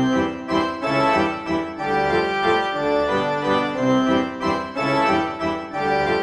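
Background music: a steady melody of held notes over a repeating lower line.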